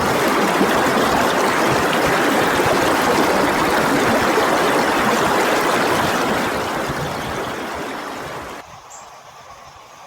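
Steady rush of running water, fading gradually and then cutting off abruptly to much quieter outdoor ambience about eight and a half seconds in.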